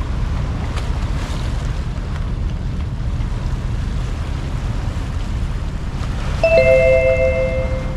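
Wind rumbling on the microphone over a steady wash of sea and surf. Near the end a two-note horn sounds once for about a second and a half.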